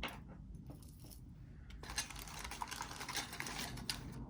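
Pieces of costume jewelry clicking and rattling lightly as they are handled and sorted, with a busy run of small clicks starting about halfway through.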